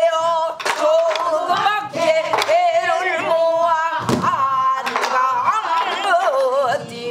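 A woman singing a Korean folk song in pansori style, with heavy vibrato and bending, wavering held notes. She accompanies herself with a few sharp strokes on a buk barrel drum.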